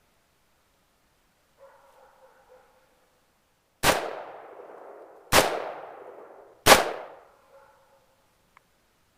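Three rifle shots about a second and a half apart, each followed by a long echoing tail.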